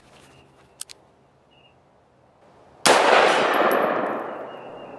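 A few faint clicks, then about three seconds in a single loud shot from an AR-15 pistol, a round that had failed to fire before going off on its second try. The shot rings on and fades over about two seconds.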